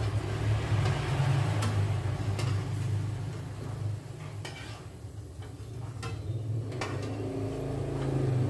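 Kerupuk crackers frying in hot oil, sizzling over a steady low rumble, with several sharp clinks of a metal spatula and wire scoop against the pan. The sizzling thins out about four seconds in.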